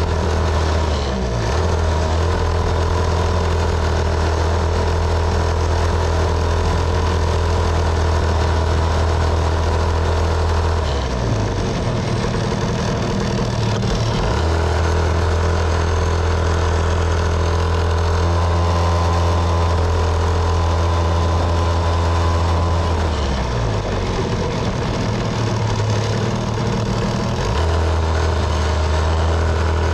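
Small dirt bike's motor running steadily as it is ridden, a loud low hum close to the handlebars. Its pitch shifts and glides twice, about a third of the way in and again past two-thirds, as the speed changes.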